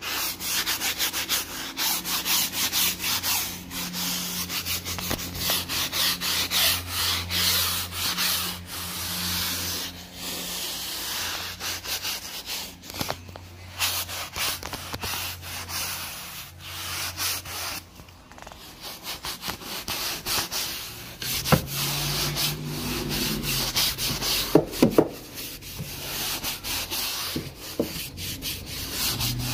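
Wooden-backed upholstery brush scrubbing soap-sprayed sofa fabric by hand in quick back-and-forth strokes, with a couple of brief pauses. A low steady hum runs underneath.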